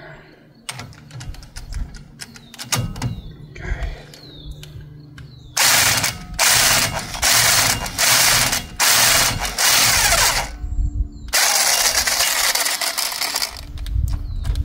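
Air ratchet turning a Torx bit on a long extension against the wheel-bearing hub bolts of a 2017 Ford Transit 350. The first few seconds hold light clicks and rattles of the bit being fitted. Then, about six seconds in, come five short loud bursts of ratcheting and a longer run of about two seconds near the end.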